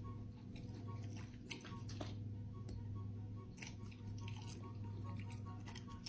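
A Rottweiler chewing fruit, with irregular short sharp bites and crunches coming in clusters.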